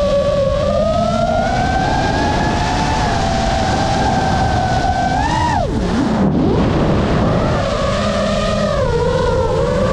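FPV drone's brushless motors and propellers whining, the pitch drifting up and down with the throttle over a steady rush of wind. About halfway through the whine rises briefly, then drops sharply as the throttle is cut for a turn, and climbs back up a couple of seconds later.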